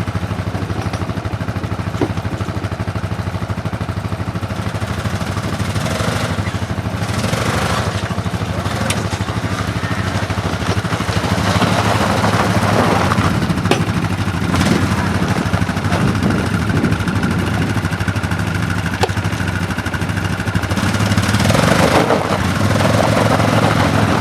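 ATV engine running steadily while riding, with louder stretches about halfway through and again near the end.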